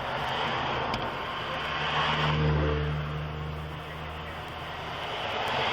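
A motor vehicle's engine passing by over steady road noise, loudest about two and a half seconds in, then fading.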